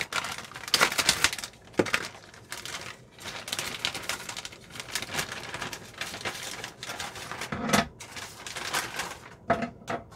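Irregular clicking, crinkling and rattling as the packaging of a new toilet water valve kit is opened by hand and its plastic parts are handled.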